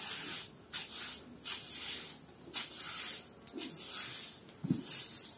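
Broom sweeping a rough concrete floor: a series of short, hissing bristle strokes, roughly one or two a second, with a soft thud near the end.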